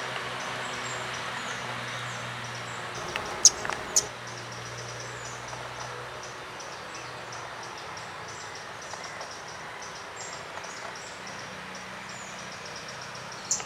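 Pale-billed flowerpecker giving two sharp, high clicking calls about three and a half seconds in, and again near the end, over a steady background of fast, high chirping.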